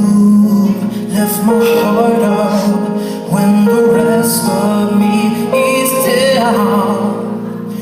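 Live music: held chords underneath a solo voice singing long notes that waver with vibrato.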